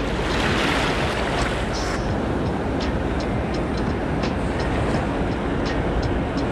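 Steady wind rumble on the camera microphone over the wash of surf from the reef, with scattered small ticks.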